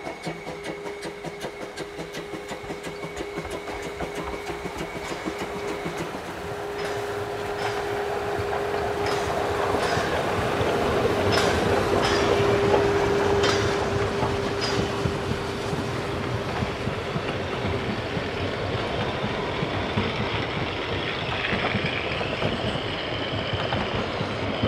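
750 mm narrow-gauge steam train (locomotive 99 1749) passing close by. First comes the fast, even beat of the locomotive working under steam with a steady tone above it, then the coaches roll past, wheels clicking over the rail joints, loudest about halfway through.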